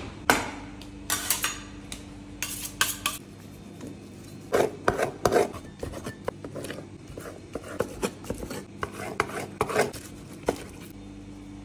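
A cleaver chopping raw sheep liver and heart on a wooden cutting board: irregular sharp knocks of the blade hitting the board, coming fastest in the second half. A steady low hum runs underneath.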